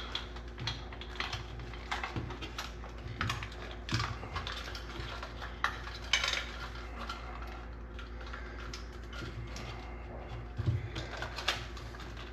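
Irregular small clicks and scrapes of electrical cable being fed through a cable insert into a thin junction box for a wafer pot light.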